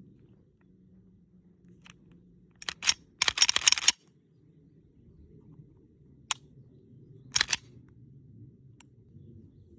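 9mm pistol shots as sharp cracks. A fast string of shots comes about three seconds in, with single and paired shots later.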